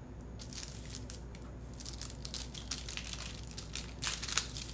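Paper crinkling and rustling as it is handled, a scatter of small crackles with a louder cluster near the end.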